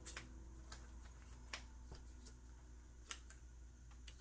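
Faint, scattered clicks and taps of trading cards being handled and set down on a table, over a low steady hum.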